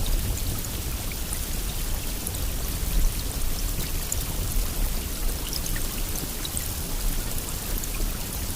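Steady rain: an even hiss with many scattered individual drop ticks and a low rumble underneath.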